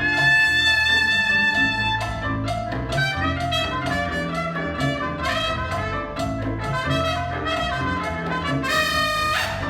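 Latin jazz band playing live: a trumpet holds a long high note, then plays quick runs of notes, over walking bass, piano and hand percussion.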